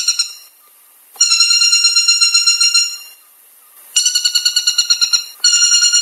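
Woodpecker calling: runs of fast, clear, evenly repeated notes, about ten a second, each run lasting a second or so. One run ends just after the start and new runs begin about a second in, about four seconds in and again near the end.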